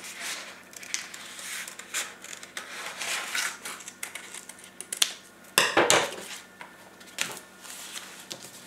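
Scissors snipping through black paper in short, irregular cuts, mixed with crisp rustling of the sheet as it is turned. Loudest about six seconds in.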